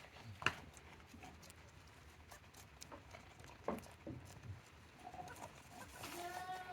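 Goats, with scattered light knocks and patter, the sharpest about half a second in. A short goat bleat comes near the end.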